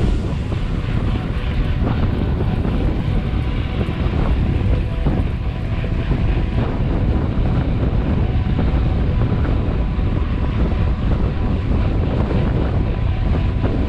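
Wind buffeting the microphone of a camera on a moving bicycle: a loud, steady low rumble that covers everything else.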